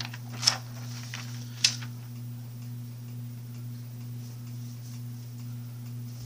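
Notebook paper being handled: two sharp papery clicks and rustles in the first two seconds as pages settle under the hand, then only a steady low hum.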